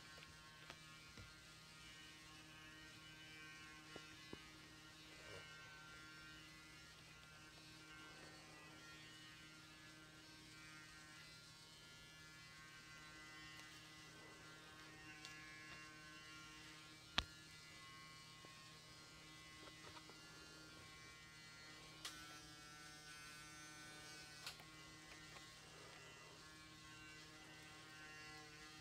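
Near silence with a steady electrical hum, broken by a few faint taps and one sharp click a little past halfway.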